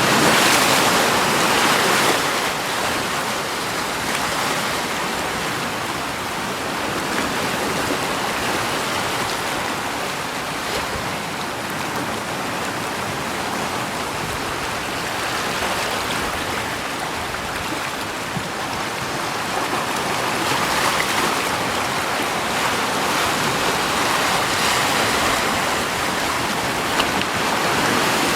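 Steady rushing water with no voices, swelling louder in the first two seconds and again over the last third.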